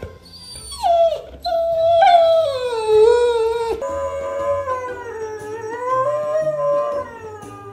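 Dog howling: long drawn-out howls that slide down in pitch and waver, the last held for about three seconds. Background music plays underneath.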